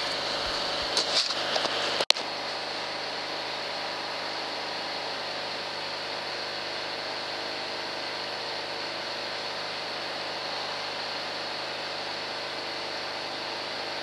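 Farm generator engine running steadily, a constant hum with a faint high whine. A single sharp click comes about two seconds in.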